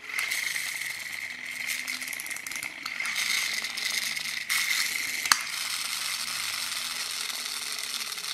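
The small plastic gear train of a press-and-go toy car's spring (clockwork) motor, whirring steadily as it spins the wheel, with a single sharp click about five seconds in.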